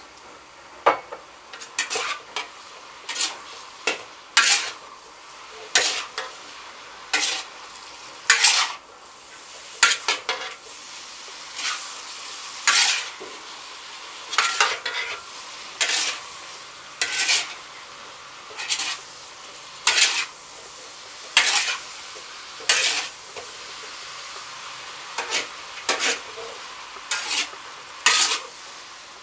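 Metal spatula and ladle scraping and clanking against a hand-hammered steel wok while vegetables are stir-fried, a stroke roughly every second, sometimes two in quick succession. Under the strokes, a steady sizzling hiss of the frying.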